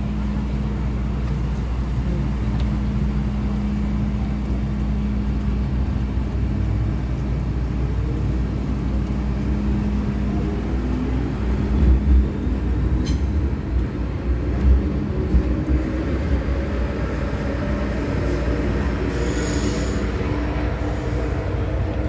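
Steady low hum inside an MTR M-Train car, with a humming tone that fades about halfway through. A few brief low thumps come near the middle, and a short high hiss near the end.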